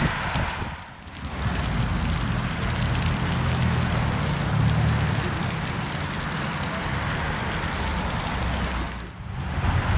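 Water spray falling and splashing onto wet pavement, a steady rain-like hiss, with wind rumbling on the microphone. The sound dips briefly about a second in and again near the end.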